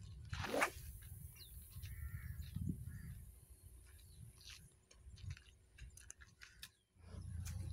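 Long surf-fishing rod swishing through the air on an overhead cast about half a second in, followed by scattered light clicks and taps from the rod and reel being handled and set in a rod holder. Low wind rumble on the microphone, louder and steadier near the end.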